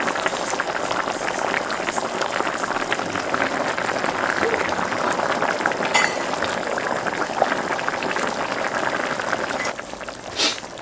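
Kimchi stew bubbling at a steady boil in a pot on a tabletop burner. The bubbling drops off sharply near the end.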